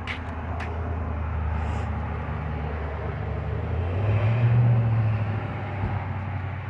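A vehicle engine running with a low, steady hum that grows louder and rises a little in pitch about four seconds in, then settles back. A couple of light metallic clicks come right at the start.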